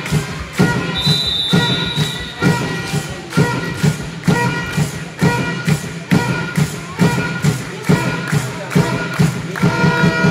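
Music with a steady thumping beat playing through a large sports hall.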